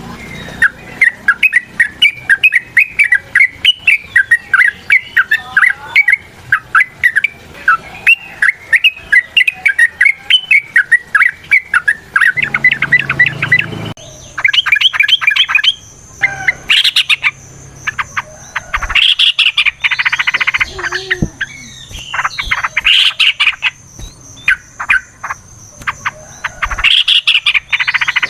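Yellow-vented bulbul (trucukan) singing in long rapid runs of bubbling chattering notes. About halfway in, the recording changes to louder, fuller song phrases with a steady high thin whine, like an insect, behind them.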